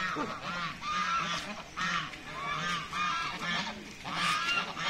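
Several white domestic geese honking over and over, two or three short nasal honks a second, overlapping one another.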